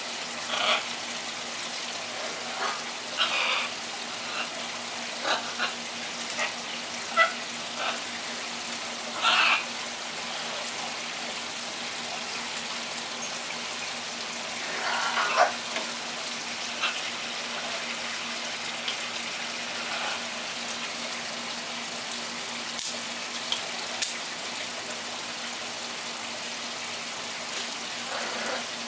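Pet parrots, blue-and-gold macaws and a cockatoo, giving short calls and squawks every few seconds over a steady background hiss. The loudest calls come about nine seconds and fifteen seconds in; the rest are brief and quieter.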